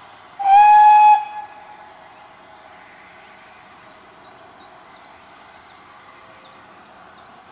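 A steam locomotive's whistle gives one short blast of under a second, about half a second in, and trails off briefly.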